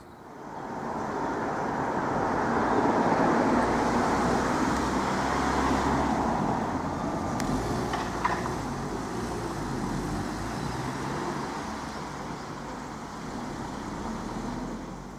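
A road vehicle passing close by: engine and tyre noise build over the first three seconds, then fade away slowly.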